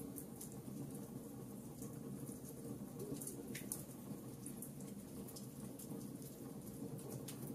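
Wood logs burning in a fireplace: irregular sharp crackles and pops over a steady low rumble of the fire, with a few louder pops midway.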